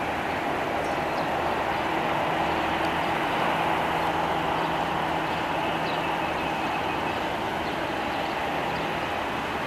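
Boeing 737-800's CFM56 turbofan engines running at idle thrust while the airliner taxis: a steady rushing noise with a faint constant whine in it.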